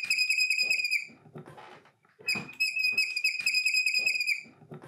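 Wooden wheel-driven bobbin winder turning, with a high, rhythmic squeal and regular clicks as it winds thread. The squeal stops about a second in and starts again about two seconds later.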